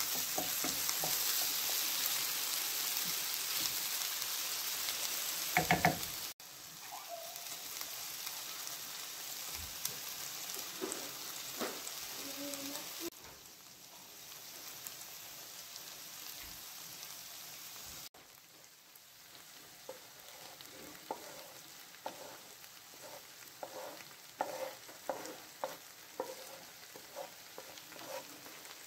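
Diced vegetables sizzling in oil in a frying pan. The hiss drops in level abruptly twice. A wooden spatula knocks once, loudly, about six seconds in, and scrapes and taps against the pan in a quick run of knocks in the last third.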